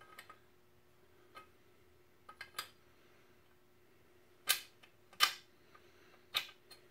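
Sharp metal clicks and clacks from a pipe clamp being fitted and worked along a steel pipe. A few light clicks come first, then three loud clacks in the second half.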